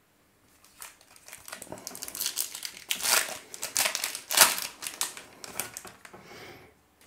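Plastic wrapper of a 2021 Topps Opening Day baseball card pack crinkling as it is handled and opened, in irregular bursts over about four seconds, loudest in the middle.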